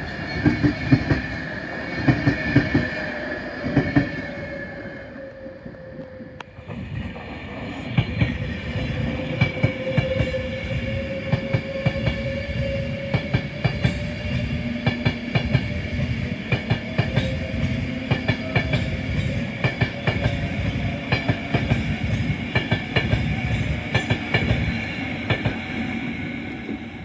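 Class 390 Pendolino electric trains passing at speed, their wheels clicking steadily over the rail joints under a steady whine. The sound dips briefly about six seconds in, then builds again as the next passage goes by.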